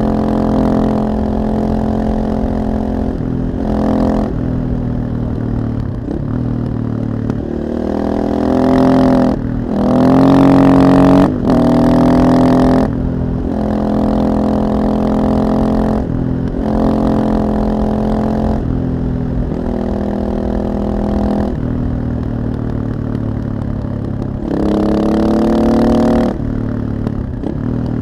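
KTM 640 supermoto's single-cylinder four-stroke engine through an Akrapovic exhaust, ridden hard: the pitch climbs as it accelerates, drops sharply at each gear change, and eases off between pulls. The hardest run is about ten to thirteen seconds in, with quick shifts.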